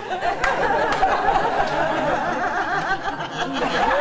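Audience laughing and chattering in a large hall, many voices overlapping.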